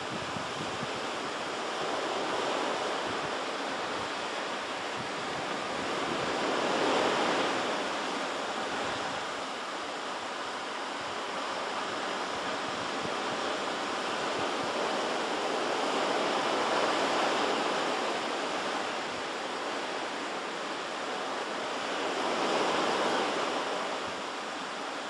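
Ocean surf: a steady rush of breaking waves that swells and ebbs, with the biggest surges about a quarter of the way in, past the middle, and near the end.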